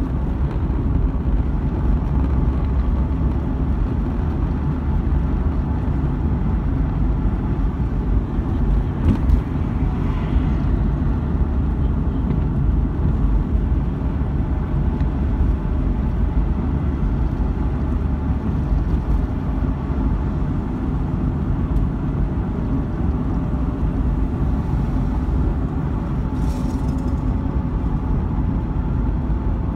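Steady road and engine noise from a car driving at city speed, heard inside the cabin: a low rumble of tyres and engine with an even hiss.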